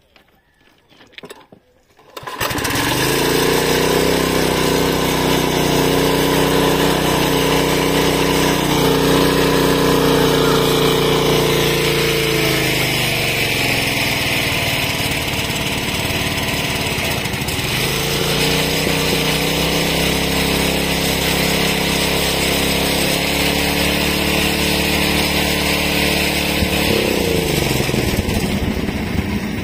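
Small single-cylinder petrol engine on a rail trolley, started about two seconds in and then running steadily. Its note drops for a few seconds midway and then picks up again.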